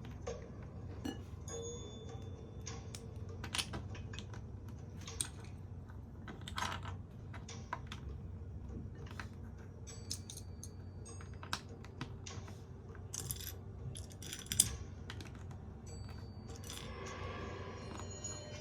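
Irregular sharp clicks and light rattling of small plastic LEGO pieces being handled and pressed together, with one louder click about two-thirds of the way through.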